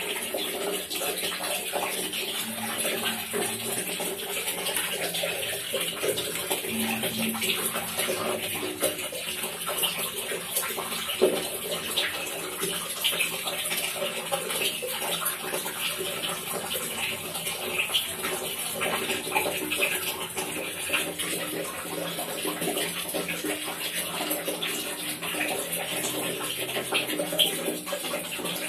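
Water falling into a container that already holds water: a steady trickle with many small drip splashes landing on the water surface.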